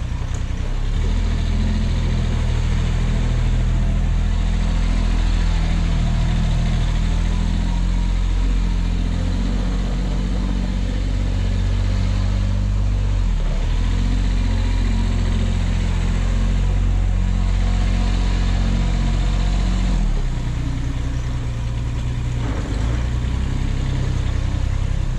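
Toro Workman 3300-D's three-cylinder diesel engine running as the utility vehicle drives in circles on dirt. The engine note dips and picks up again about halfway through, and settles lower near the end.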